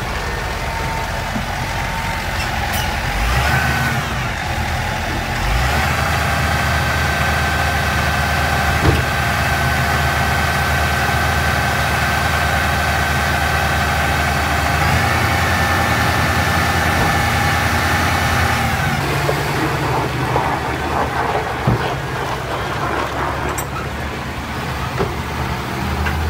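Massey Ferguson 7618 tractor's six-cylinder diesel engine, revving up a few seconds in and held at high revs with a steady high whine while its trailer is tipped to unload maize. It drops back to lower revs near the end, with some clatter.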